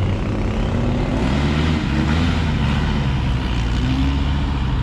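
Car engine running at a steady, loud level, its pitch wavering slightly.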